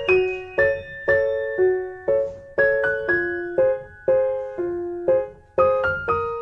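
Background music: a piano playing soft chords, a new chord struck about twice a second and each one ringing and fading before the next.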